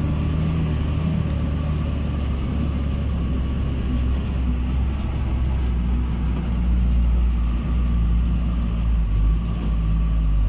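Steady engine drone and low rumble of a vehicle driving on a rough dirt road, heard from inside the cab.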